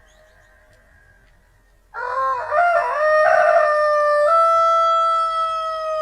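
Rooster crowing, slowed to a quarter speed, so the crow is drawn out long and lowered in pitch. One call starts about two seconds in with a broken, stepping opening, then holds a long steady note that steps up once near the middle before ending.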